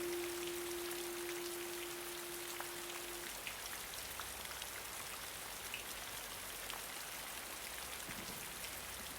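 Steady rain with scattered individual drops ticking. A single held guitar note rings on and ends about three seconds in, leaving only the rain.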